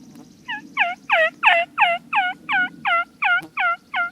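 Turkey yelping: a series of about eleven evenly spaced yelps, roughly three a second, each note breaking downward in pitch. The first note is soft and the rest are loud.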